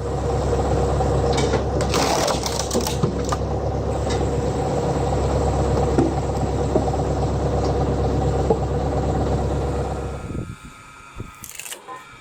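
Hydraulic log splitter running steadily under power, with a few sharp cracks. The machine sound drops away suddenly about ten and a half seconds in, leaving scattered clicks.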